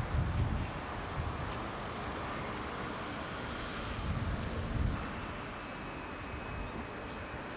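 Wind buffeting the microphone in gusts over a steady outdoor background rumble, with a faint thin high tone coming in about five seconds in.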